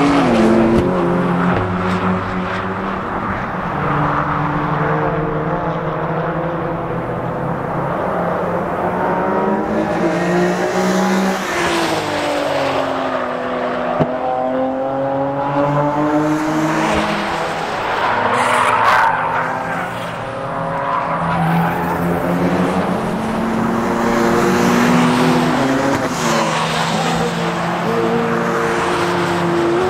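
Exhaust and engine sound of several sports cars driven hard through a circuit corner one after another. The cars overlap, and their engine notes fall and rise again and again as each slows and accelerates away.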